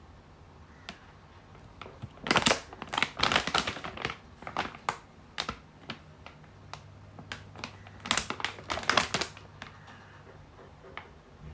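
Foil-laminate plastic pouch crinkling and crackling as it is handled and turned over in the hands, in two spells of rapid crackles a few seconds apart with a few lone clicks between.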